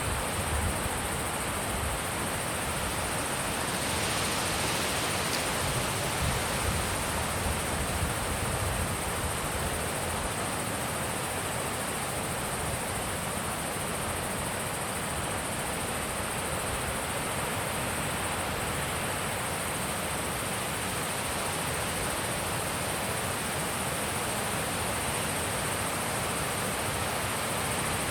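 Wind blowing steadily, a continuous rushing hiss, with a few low gusts buffeting the microphone in the first several seconds.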